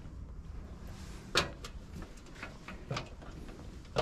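Footsteps and a few sharp knocks as someone climbs an aluminium stepladder onto the stern of a small motor cruiser, the loudest knock about one and a half seconds in.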